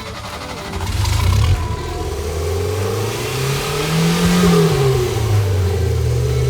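Renault R4 GTL's four-cylinder engine running, rising in revs to a peak about four seconds in and then easing back.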